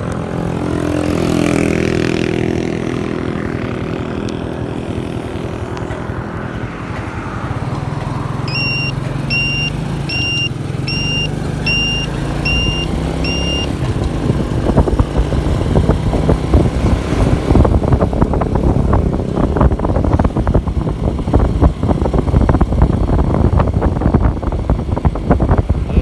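Motorcycle engine running while riding at road speed, its note falling away at the start. Midway come seven short high beeps a little under a second apart, and through the second half heavy wind buffeting on the microphone grows loudest.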